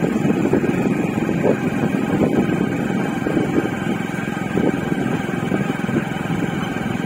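Motorcycle running along at a steady pace, heard from on the bike, with a dense rumble of engine, road and wind noise that eases slightly near the end.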